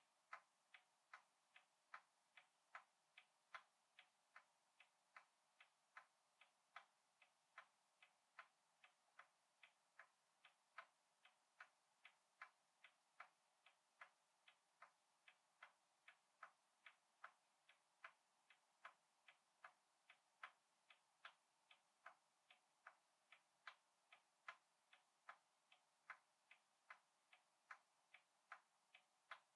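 Faint, even ticking of a clock, about two and a half ticks a second with a slight tick-tock alternation.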